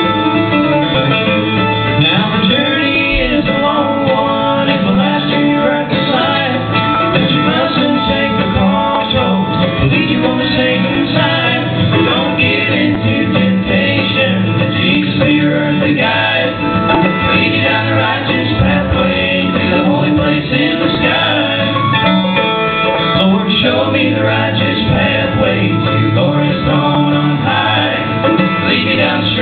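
Live bluegrass band playing a song on banjo, acoustic guitar, mandolin and upright bass, with singing.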